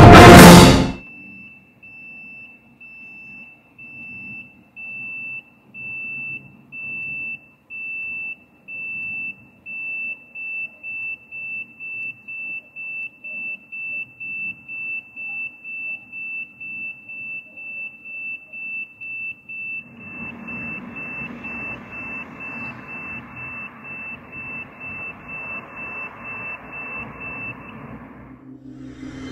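A traffic light's audible pedestrian-crossing signal beeping a single high tone, about once a second at first, then about twice a second from about ten seconds in. The title calls it deafening. A steady rushing noise joins it for the last few seconds before it stops.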